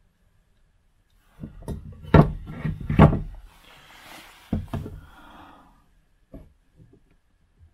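Wooden workpieces being handled and set down on a wooden workbench: a run of hard wooden knocks, loudest about two and three seconds in, then some rustling and a few lighter knocks.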